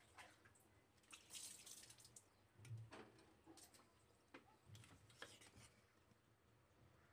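Faint irregular splashing and dripping of water as raw fish steaks are rinsed by hand in a steel plate at a sink.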